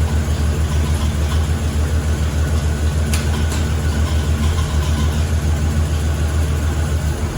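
Pontiac 400 V8 of a 1969 GTO idling with a steady, evenly pulsing low note while its new Muncie four-speed is run through the gears with the wheels turning. Two short sharp clicks come about three seconds in.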